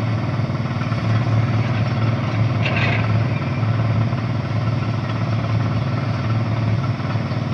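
Tata Signa 2830 tipper truck's diesel engine running steadily at a low, even speed, with a brief hiss about three seconds in.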